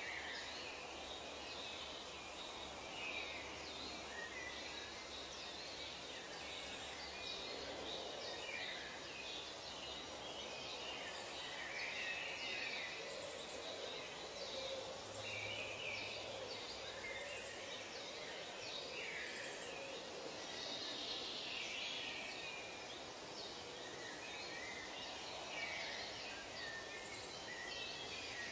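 Tropical forest ambience: many birds calling in short, overlapping chirps over a steady background hiss.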